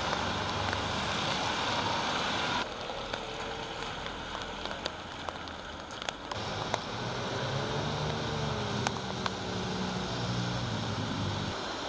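Traffic on a rain-soaked street: tyres hissing on the wet road as motorbikes and cars pass. A few seconds in, the hiss drops to rain falling on paving and puddles, with scattered drip ticks. In the second half, a motor vehicle's engine hums past over the wet-road noise.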